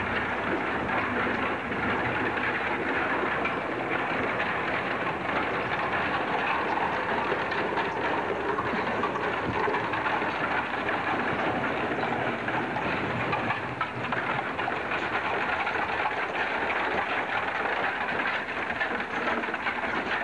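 Horse-drawn covered wagon rolling on gravel: a steady, dense rattle and clatter of wheels and rig that goes on without a break.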